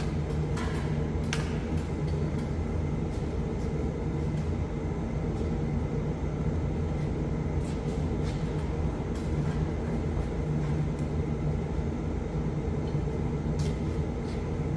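Kukje AF350 tractor's diesel engine running steadily with an even low hum.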